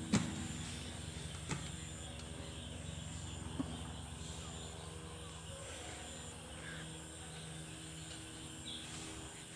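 Plastic clicks as a bell-type chick drinker is handled and its water hose is pushed onto the valve on top: a sharp click at the start, then two smaller ones about a second and a half and three and a half seconds in. A steady low mechanical hum runs underneath.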